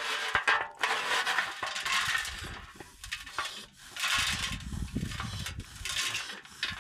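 Dishes and metal cookware being handled, with repeated clinks, knocks and scrapes, and a low rumble about four seconds in.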